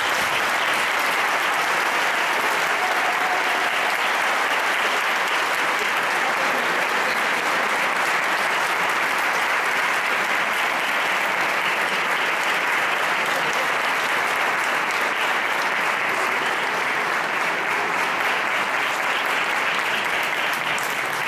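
Audience applauding: long, steady clapping that starts abruptly and holds at an even level without a break.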